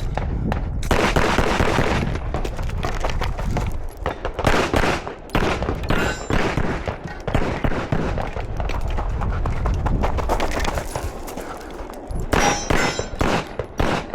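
Gunfire in quick strings of shots with short lulls between them: a shooter running an IDPA course of fire.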